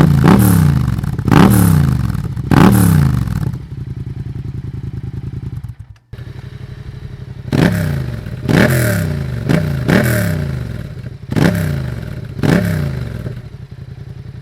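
An engine revved in quick blips about once a second, its pitch falling away after each one. It settles to a steady idle in the middle, drops out briefly, and is revved again before idling near the end.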